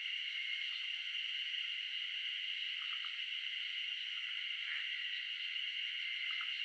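Eastern spot-billed duck ducklings peeping softly now and then over a steady, high-pitched background chorus. One call about five seconds in drops sharply in pitch.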